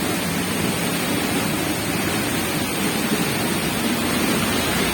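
Steady rush of a large waterfall falling close by, heavy water pounding down.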